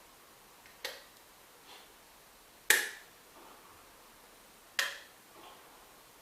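Three sharp clicks about two seconds apart, the middle one loudest, each followed by a fainter click a moment later.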